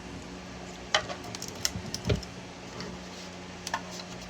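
PLA 3D-print support material snapping and clicking as it is pried and cut off the print: a few sharp clicks in the first two seconds, a dull knock just after two seconds, and one more click near the end, over a steady low hum.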